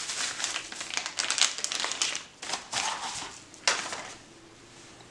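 Crinkling and rustling of wrapping as a folding knife is unwrapped and taken out of its box, in a run of quick handling noises that dies away after about four seconds.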